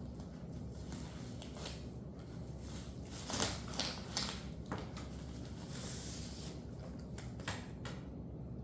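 Paper packaging rustling and crinkling as it is handled, in short bursts, the loudest a few seconds in, over a steady low hum.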